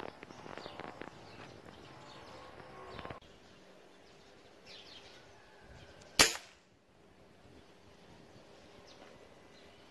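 A single air-rifle shot about six seconds in: one sharp crack, by far the loudest sound, dying away within half a second.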